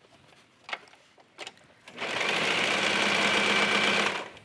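Brother serger sewing a four-thread overlock seam on knit leggings fabric. After two light clicks, the machine starts about halfway in, stitches at a steady speed for about two seconds, and stops just before the end.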